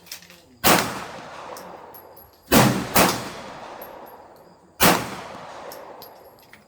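Four gunshots, one about half a second in, two close together around two and a half to three seconds, and one near five seconds, each followed by a long echoing tail.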